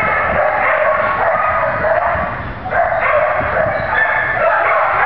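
Many shelter dogs barking, yelping and howling all at once in a noisy, unbroken din, easing briefly about two and a half seconds in.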